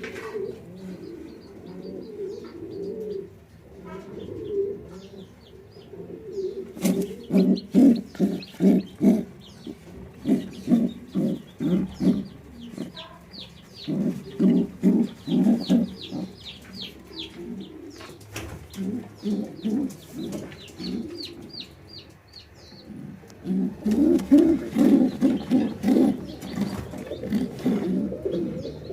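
Pigeon cooing in repeated runs of pulsing coos, with chicken chicks peeping in quick high series.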